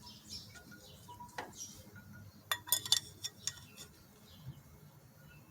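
Metal camp cookware being handled: a few light clicks and clinks, with a quick cluster of them around the middle.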